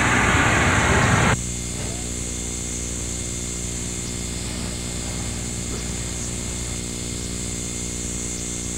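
A steady low hum with no change in pitch, cutting in abruptly about a second in after a brief stretch of louder, noisy background sound.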